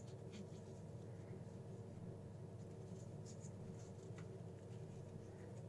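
Faint rustles and light ticks from small plastic packaging being handled, a few scattered through, over a steady low hum.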